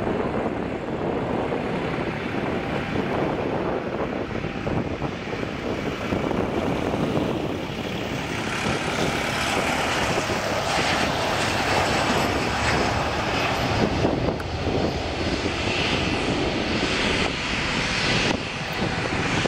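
Boeing 737-300's twin CFM56-3 turbofan engines at takeoff thrust through the takeoff roll and lift-off. It is a steady, loud jet noise whose higher, hissing part grows stronger from about eight seconds in as the jet comes by.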